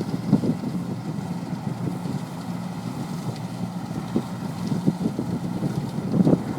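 Gleaner L3 combine harvesters running steadily while cutting wheat, a constant machine hum, with gusts of wind buffeting the microphone, strongest near the end.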